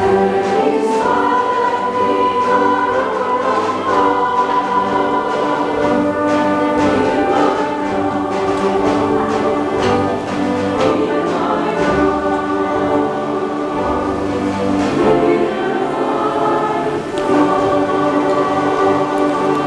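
Mixed choir singing in full harmony with a small orchestra accompanying, held chords that move on steadily.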